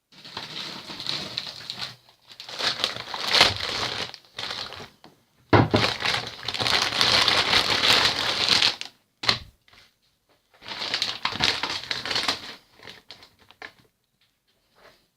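Close crinkling and rustling, like material or packaging being crumpled and handled right by the microphone, in a run of irregular bursts; the longest lasts about three seconds, from about five and a half seconds in.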